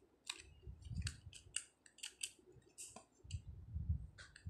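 Scattered light clicks and rustles of a die-cast toy car and its cardboard display box being handled, with a few soft low bumps about a second in and again near the end.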